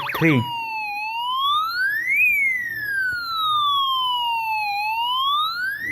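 Electronic siren project sounding a police-style wail: a single tone that rises slowly to a high pitch and falls back, about one up-and-down cycle every four seconds. In the first half second a fast warbling tone cuts off as the wail begins.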